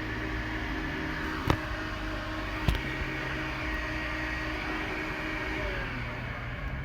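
2010 Hyundai Elantra engine idling steadily, heard from inside the cabin, with two sharp small clicks about a second and a half and two and a half seconds in.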